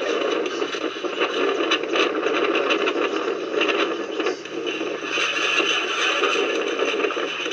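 A storm battering tents: a loud, steady rushing noise with constant rattling, scraping and clattering throughout.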